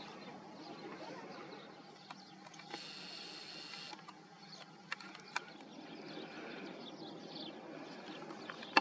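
Faint outdoor background noise, broken by a few short, sharp clicks, with the loudest click just before the end.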